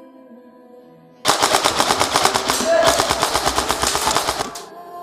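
Airsoft rifle firing a long full-auto burst, rapid sharp shots for about three seconds, starting about a second in and stopping suddenly near the end. Quiet background music runs under it.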